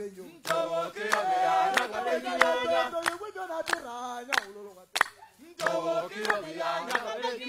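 A group of voices singing together in chorus, held notes in short phrases, with sharp percussive strikes falling between and over the phrases.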